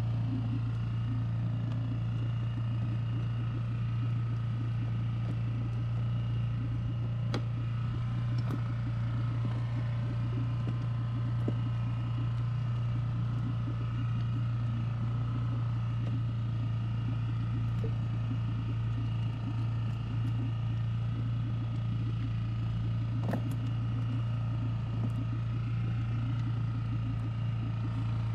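Small outboard motor running steadily at low trolling speed, a constant low hum, with a couple of faint knocks.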